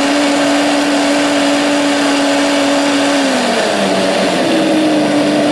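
Countertop blender running at speed, blending bananas, milk and drinking chocolate into a shake. A steady motor whine over a loud whirring churn; the pitch sags for about a second a little past halfway, then comes back up.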